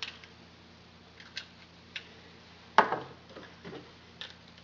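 Small handmade spinning tops clicking and clattering on a wooden tabletop as they are set spinning: a few light ticks, then a sharp knock a little under three seconds in, followed by several smaller clicks.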